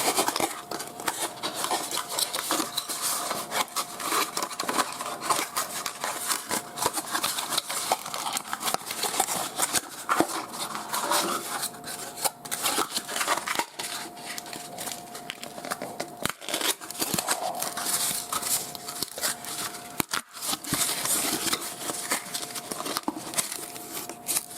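Close handling noise of a CPU's packaging and parts: rapid clicks, taps and plastic rustling, over a faint steady tone.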